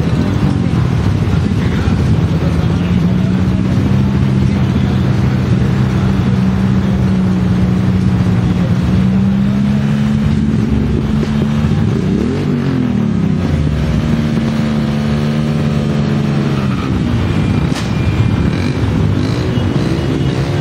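Motorcycle engines running as a caravan of motorcycles and a car rolls past, with a steady engine hum throughout. The pitch rises and falls briefly about twelve seconds in and again near the end, as engines rev.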